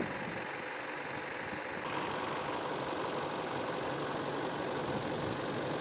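Diesel engine of a heavy construction machine running steadily, a little louder about two seconds in.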